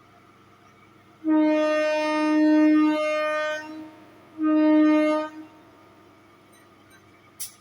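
Train horn sounding two steady blasts, one long of about two and a half seconds, then a shorter one of about a second. A single sharp click near the end.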